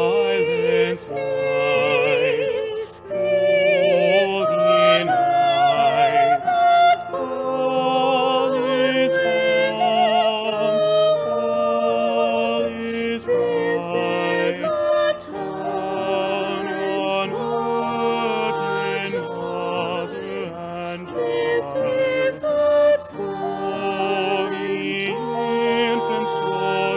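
Three voices singing a slow Christmas song in harmony with vibrato, accompanied by piano.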